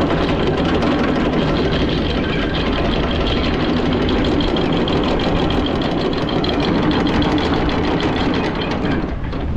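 Electric anchor windlass running and paying out anchor chain: a steady motor hum with the chain rattling over the gypsy. It starts abruptly and stops about nine seconds in.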